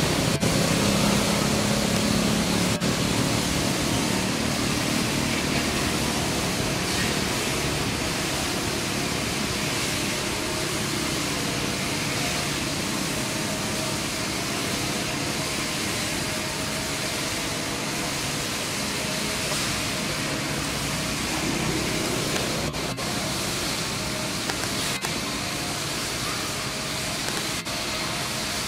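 Motorbike engines passing along a road over a steady hiss of background noise. One runs loudest in the first few seconds, then fades into the general hum.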